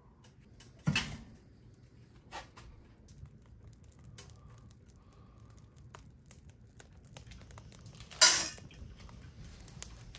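Scattered knocks and metallic clanks in a quiet room: a clunk about a second in while the wood stove is being tended, a few light taps, and a loud sharp clank near the end.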